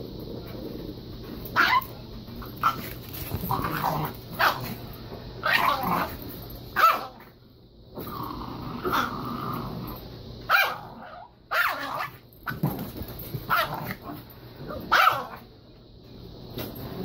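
A dog barking in short, sharp barks, about a dozen spread out with uneven gaps, with low growling between them.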